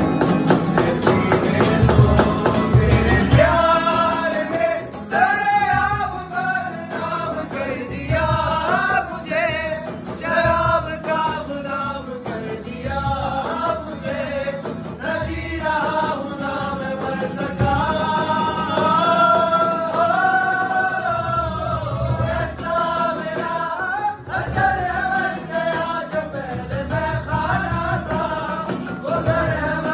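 A man singing a soulful Hindi-Urdu song, accompanied by acoustic guitar strumming and cajon beats. The voice comes in about three and a half seconds in, after a short instrumental stretch.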